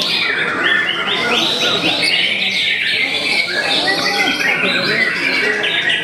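Caged white-rumped shamas singing at once: a dense, overlapping chorus of quick whistled and chattering phrases that runs without a break.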